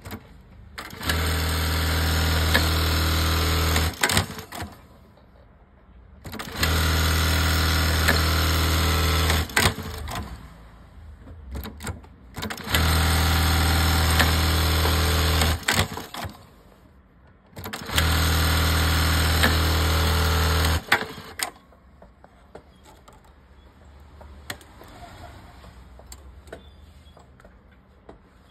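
Latino high-speed industrial lockstitch sewing machine running in four steady bursts of about three seconds each, separated by short pauses; after the fourth burst it stops, leaving only a few faint clicks.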